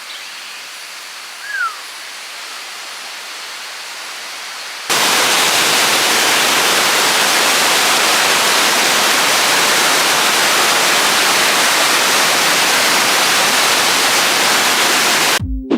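Steady rush of a waterfall, loud and unchanging, cutting in abruptly about five seconds in. Before it, a quieter even hiss of water with one brief falling chirp.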